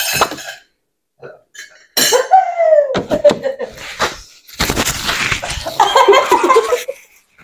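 Women laughing and crying out with no words, reacting to the burn of very spicy noodles: a long cry falling in pitch about two seconds in, then breathy laughter from about halfway through.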